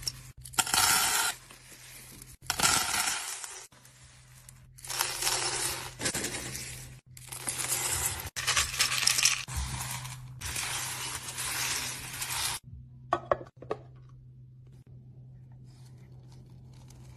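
Small beads poured from cups into metal and glass bowls, rattling and clinking in several bursts. The last pour is the longest, and it stops about three-quarters of the way through.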